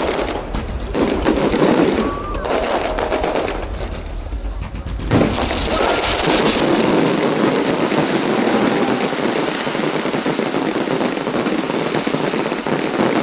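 Fireworks going off: rapid, dense crackling and popping of many shells at once. A loud burst comes about five seconds in, after which the crackle grows thicker and steadier.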